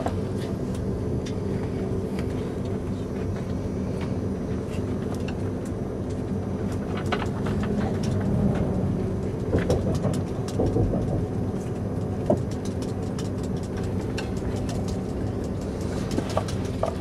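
Eurostar high-speed train running along the track, heard from inside the carriage: a steady low rumble with a hum. Scattered clicks and rattles come through, busiest about halfway through.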